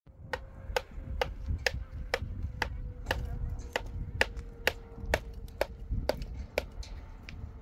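A steady series of sharp blows from a hand tool striking in an even rhythm, about two a second, with a chopping character.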